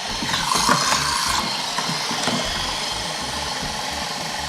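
Small battery-powered gear motors of Little Live Pets toy turtles whirring steadily as their legs paddle, with a burst of clicking and knocking in the first second and a half.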